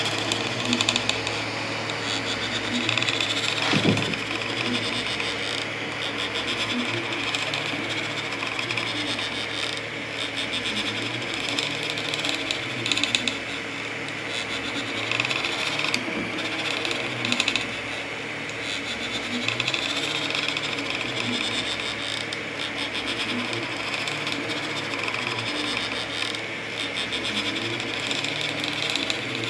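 3D printer printing: its stepper motors buzz and whine in wavering tones as the print head moves, over the steady hiss of its cooling fans, with an occasional tick.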